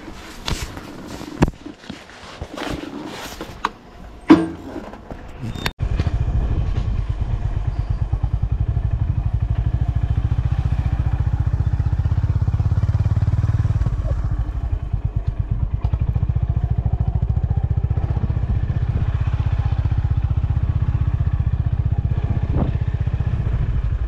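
Royal Enfield single-cylinder motorcycle engine, coming in suddenly about six seconds in and running with a steady, even low beat. Before it, a few knocks and clatter.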